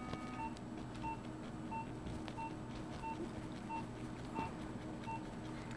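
Operating-room patient monitor sounding its pulse tone: a short high beep about every two-thirds of a second, keeping time with the patient's heartbeat, over a steady low equipment hum. Faint irregular scraping strokes come from a bone rasp filing down the bump of the nose.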